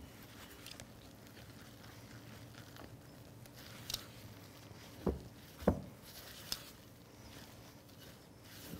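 Silicone spatula stirring a wet, shaggy quick-bread dough in a glass mixing bowl: soft scraping and squelching, with a few light ticks and two louder knocks against the bowl just past halfway.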